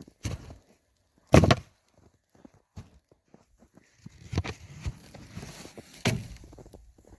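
Footsteps through snow with a few sharp knocks, the loudest about a second and a half in, and a stretch of crunching and rustling near the end.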